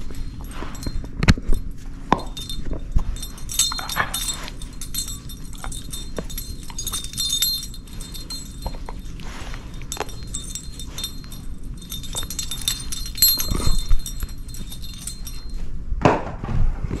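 Shepherd-mix dog playing with toys close up: scuffling, mouthing and knocks, with metal jingling and clinking throughout.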